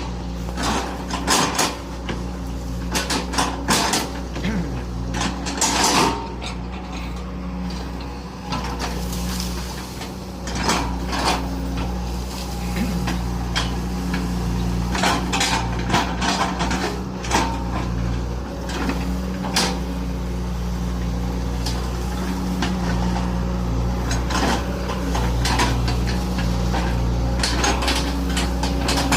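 Excavator's diesel engine running steadily under load, with many sharp knocks and clanks, some in quick clusters, as the bucket chops up oil palm trunks.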